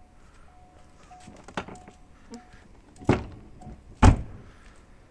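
Corvette C5's warning chime beeping steadily about once every three-quarters of a second, with a knock about a second and a half in and a thump about three seconds in. About four seconds in the car's door shuts with a heavy slam, the loudest sound.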